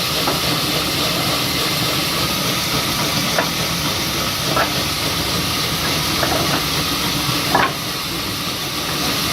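Steady hissing noise with no clear pitch, and a few faint short sounds over it.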